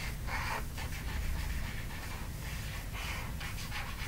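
Felt-tip marker scratching across paper in short strokes while drawing a zigzag line, over a low steady hum.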